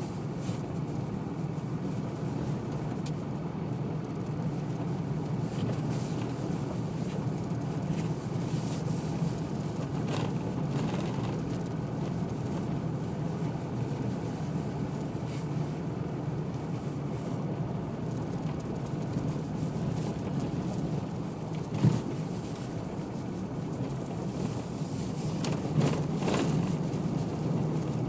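A car driving along a gravel road: steady engine hum with tyre and road noise. A sharp knock from a bump comes about three-quarters of the way through, and another near the end.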